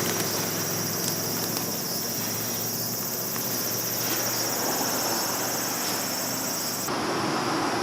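A steady, high-pitched chorus of insects over a haze of outdoor noise, the sound shifting abruptly near the end.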